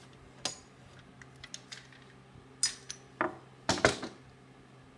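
A handful of separate sharp knocks and clatters as hard tools and pine boards are handled and set down while a toolbox is assembled. The loudest cluster comes about three and a half seconds in.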